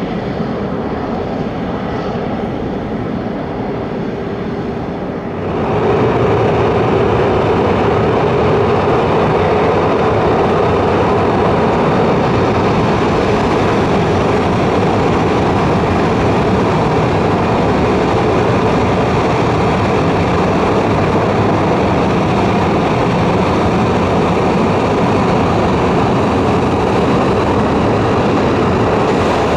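Boeing 737-800's CFM56 jet engines running, a steady whine over a rumble. About five seconds in it steps up louder and stays even.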